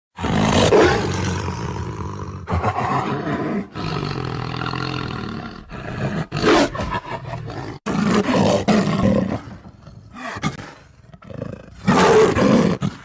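Tiger roaring and growling: a string of separate loud roars, each starting suddenly and trailing off into a lower rumble, with the loudest near the start and near the end.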